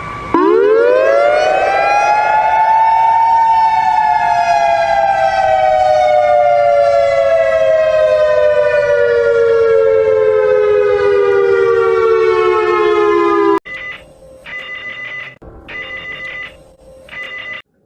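Civil defense siren in an emergency alert recording: it winds up quickly over about three seconds, then slowly winds down for about ten seconds and cuts off. Then come three short bursts of an electronic ringing tone.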